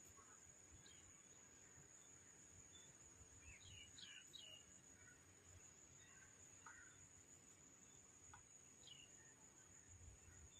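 Faint outdoor ambience: a steady high-pitched insect-like drone throughout, with a few short, faint bird chirps in the middle, a cluster about four seconds in and more near seven and nine seconds.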